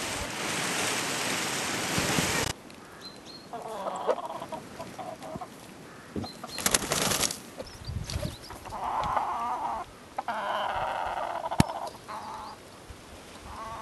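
Wind and rain hissing on the microphone for about the first two and a half seconds, cutting off abruptly. Then chickens cluck and call in short bursts, most fully toward the end, with a short rustling burst near the middle.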